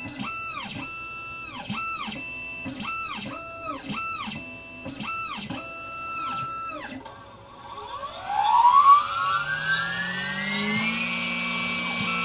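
Xhorse Dolphin XP005 key cutting machine. Its stepper motors whine through a string of short moves, each rising, holding and falling in pitch, as the machine positions itself. About seven seconds in, the cutter motor starts; its whine climbs for about three seconds, then runs steady.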